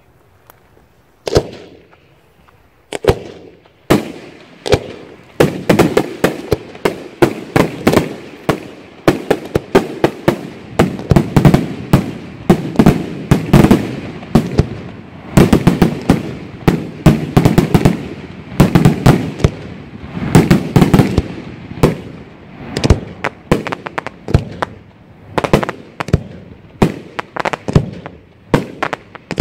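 Aerial firework shells bursting: after a moment of quiet, a few single sharp bangs, then a rapid barrage of many overlapping bangs that thins out to scattered reports near the end.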